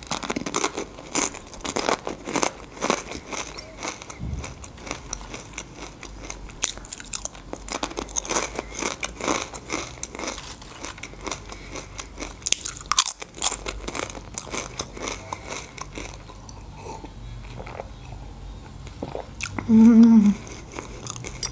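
Close-miked crunching and chewing of Doritos tortilla chips, dense crisp crunches that thin out after about sixteen seconds. A short hummed 'mm' comes near the end.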